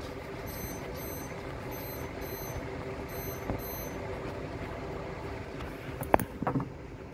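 A lightning detector beeping high-pitched double beeps, three pairs in the first four seconds; each pair signals a lightning strike within 15 miles. Underneath is a steady hiss of rain, and a sharp knock with a few softer taps comes about six seconds in.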